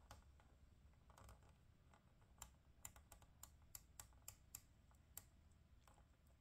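Faint, light plastic clicks, about ten in quick irregular succession through the middle, as fingers press plastic gauge needles onto the pointer shafts of a car instrument cluster.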